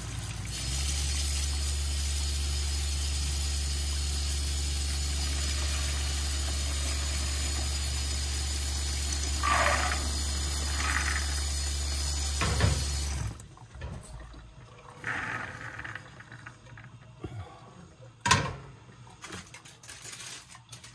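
Cold kitchen tap running steadily into a stainless steel sink, with a steady low hum, while boiled popcorn kernels slide from a pot into a plastic colander about ten seconds in. The water cuts off suddenly about 13 seconds in, followed by a few scattered knocks.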